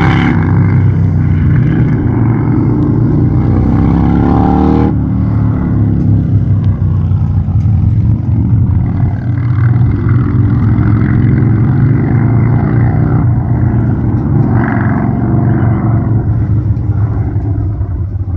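Motorcycle engines running loud, with the pitch rising as a bike accelerates over the first few seconds. The sound changes abruptly about five seconds in to a steadier engine note.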